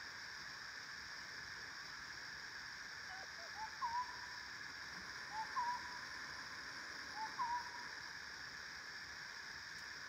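Three short soft hooting calls, about a second and a half apart. Each one slides up and then holds a moment on one note, over a steady high drone in the background.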